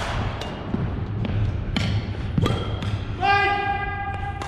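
Badminton rally on a hardwood gym floor: several sharp racket strikes on the shuttlecock and footfalls, with rubber court shoes squeaking on the floor, one long squeak about three seconds in.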